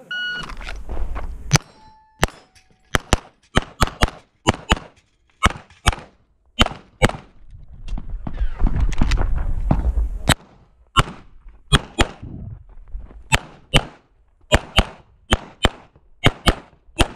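A Walther PPQ Q5 Match SF 9mm pistol firing rapid strings of shots, many in quick pairs, with short breaks between the strings and wind noise buffeting the microphone while moving between positions.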